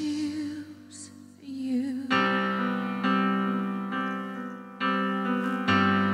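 Live electric stage piano playing sustained chords, four struck over the last four seconds, after a singer's held, wavering note in the first two seconds.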